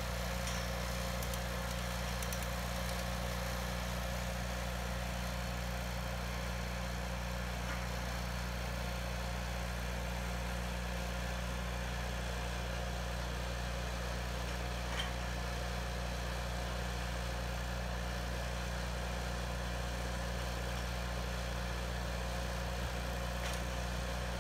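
Engine-driven welder idling steadily: a constant low engine hum that holds the same pitch throughout.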